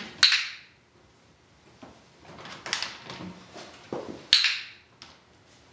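Handheld dog-training clicker clicking sharply twice, about four seconds apart, in clicker training, with softer knocks between the clicks.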